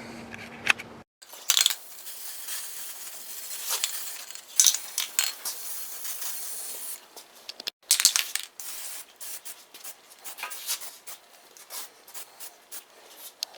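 Aerosol spray paint can spraying in hissing bursts, mixed with sharp clicks and rattles.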